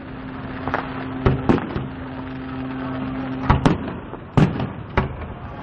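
Fireworks going off: a string of sharp bangs from bursting aerial shells, irregularly spaced, about seven in a few seconds. A steady low hum runs under the first half.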